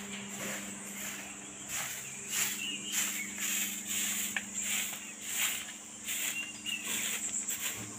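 Insects chirring in a steady high-pitched drone, with footsteps crunching over dry leaf litter and a few short bird chirps.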